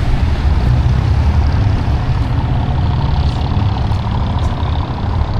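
Road traffic: vehicle engines running close by as a steady low rumble.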